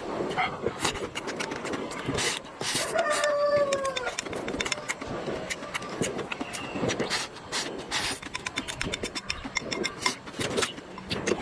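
Close-up eating sounds: irregular crisp clicks and smacks of chewing and utensils. About three seconds in, a brief pitched call slides downward.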